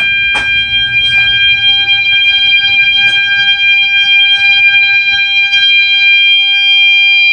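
System Sensor mass-notification sounder strobes sounding a loud, steady continuous electronic tone at about 800 Hz: the 800 Hz continuous setting they are stuck on, having no tone clips. A few sharp clicks are heard over it.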